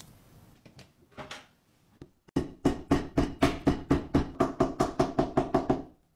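A mallet beating a slab of Yixing purple clay flat on a wooden table: a fast, even run of slaps, about five a second, starting about two seconds in and lasting some three and a half seconds, after a few softer knocks.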